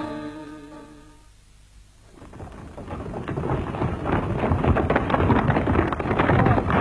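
Background music fades out, then from about two seconds in a heavy rushing, crackling noise like rain with rolling thunder swells steadily and grows loud.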